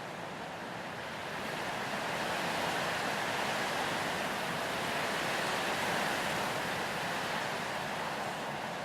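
Wind blowing through grass and a pine tree: a steady rushing hiss that swells over the first two seconds or so and eases slightly near the end.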